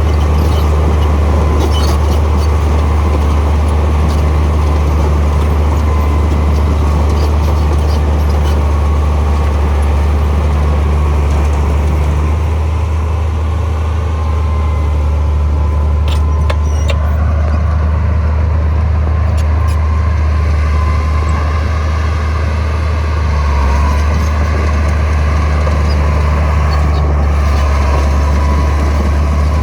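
Heavy diesel earthmoving machine running steadily under work, a loud low drone, with a few short clanks.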